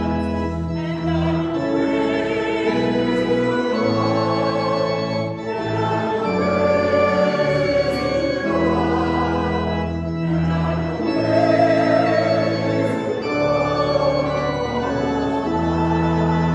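Organ playing a hymn in sustained chords, with the congregation singing along.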